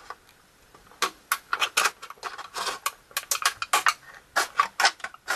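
Scissors cutting down the middle of a thin white plastic tray: a quick run of short, sharp snips starting about a second in.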